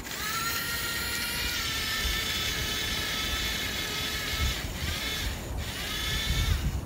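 Radio-controlled toy excavator's electric track motors whining steadily as it reverses, cutting out twice briefly near the end and falling in pitch as they stop.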